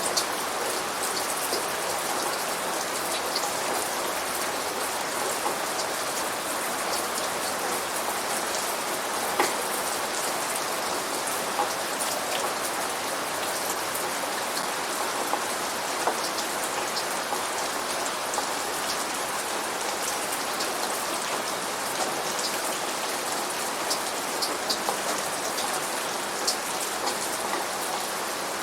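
Steady rain falling and pattering on a surface, with many close individual drops ticking sharply through the hiss. No thunder is heard.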